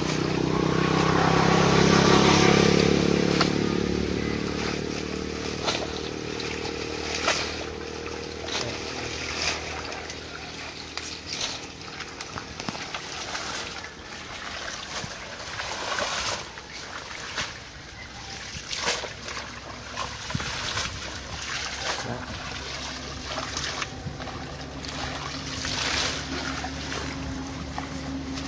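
A passing motor hums, swelling and then fading over the first few seconds; after that, water sloshes and splashes with scattered sharp knocks as a drag net is hauled through water hyacinth, and another engine hum comes in near the end.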